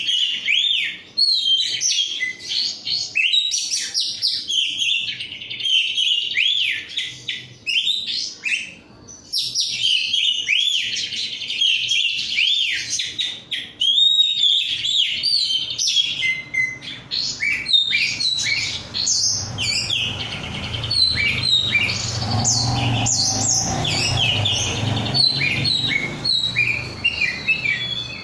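Oriental magpie-robin (kacer) singing hard, a long run of rapid whistles, chirps and trills broken by short pauses. A low background rumble joins in during the second half.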